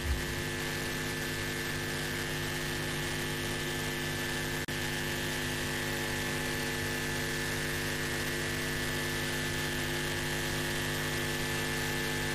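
Steady electrical mains hum of several even tones over a hiss, in an otherwise silent assembly hall during a minute of silence; the sound drops out for an instant about four and a half seconds in.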